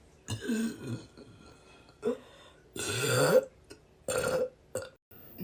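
A person burping five times in a row: a burp at the start, a short one about two seconds in, a long, loud burp near the middle that rises in pitch, then two shorter ones near the end.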